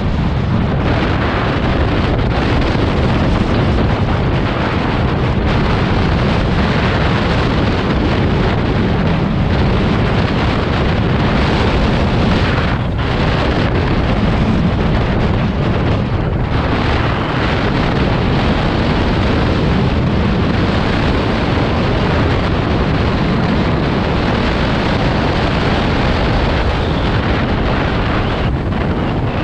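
Wind buffeting the microphone of a vehicle moving at speed, with engine and road noise beneath, a steady loud rush.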